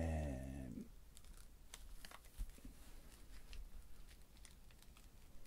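Faint crinkling and scattered light ticks of a wax-paper trading card pack wrapper as gloved fingers pick at its sealed folds, trying to open it without tearing it. A brief spoken sound comes right at the start.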